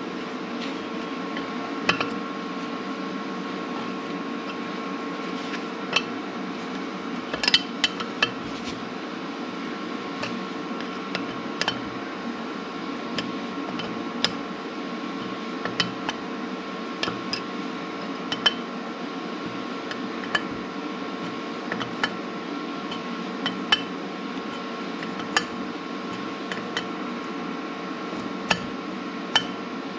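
A steel wrench clinking against a nut welded onto a broken exhaust stud in an aluminum cylinder head, as the stud is worked loose. The short metallic clinks and taps come irregularly, every second or two, over a steady background hum.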